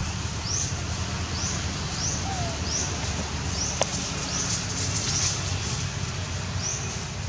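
Outdoor ambience: a short, high, rising chirp repeats about every two-thirds of a second over a steady low rumble. A short wavering call comes about two seconds in, and a single sharp click near the middle.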